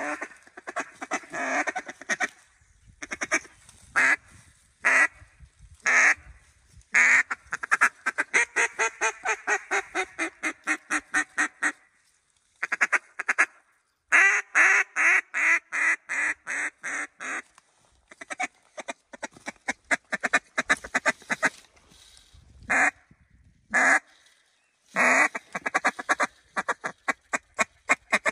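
Mallard duck call blown in runs of loud, sharp hen quacks, each run starting loud and tapering off, with a long fast run in the middle: hail and greeting calling to work passing mallards toward the decoys.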